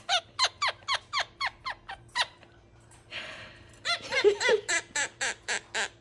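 Monk parakeet giving its mimicked laugh: two quick runs of high, squeaky notes, each sliding down in pitch, about five a second, broken about halfway by a short breathy hiss.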